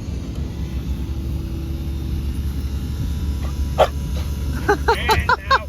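Steady low rumble of idling machinery, with a quick run of short, falling animal calls near the end.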